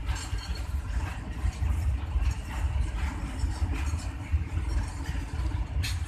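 Loaded container flat wagons of a freight train rolling past: a steady low rumble of steel wheels on the rails, with irregular sharp clacks as wheels cross rail joints, the loudest just before the end.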